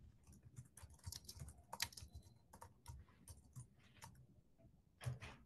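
Faint computer-keyboard typing over a video call: quick, irregular key clicks.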